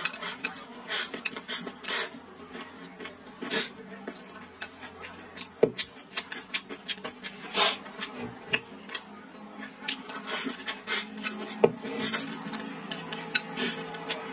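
Eating sounds: chewing and slurping rice and tofu skin from a bowl, with chopsticks scraping against the bowl in many short, irregular strokes and two sharper clicks, about five and eleven seconds in.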